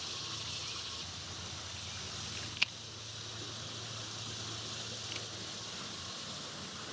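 Steady rush of flowing creek water, with one sharp click about two and a half seconds in and a fainter click near five seconds.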